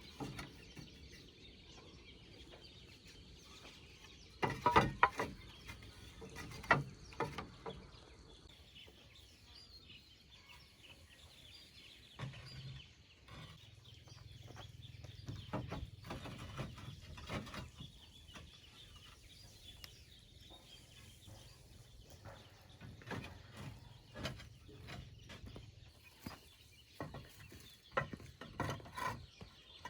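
Farmyard chickens clucking, with a few clusters of sharp knocks and a low steady hum through the middle.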